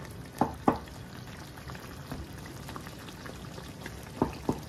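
Chicken and tomatoes simmering with a steady bubbling in a nonstick wok, while a wooden spatula presses and mashes the softened tomatoes, knocking against the pan twice near the start and twice more near the end.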